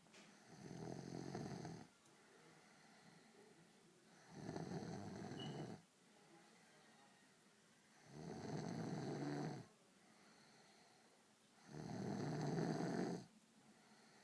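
A sleeper snoring in a steady rhythm: four long snores, one about every three and a half to four seconds, each lasting about a second and a half, with quiet breaths between them.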